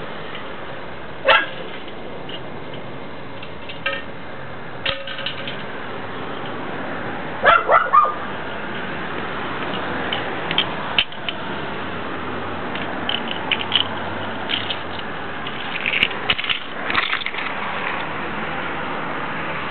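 A dog barking in short bursts, one bark about a second in and a quick run of three a few seconds later, with a few fainter short sounds after, over steady outdoor background noise.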